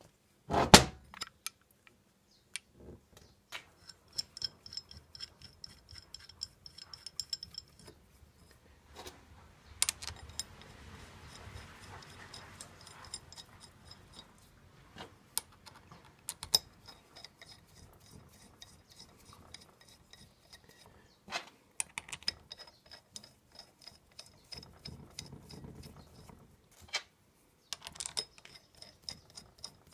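Steel parts of a crown wheel and ATB limited-slip differential being handled on a workbench as the crown wheel bolts are fitted: scattered metallic clicks, clinks and knocks, with one sharp knock about a second in.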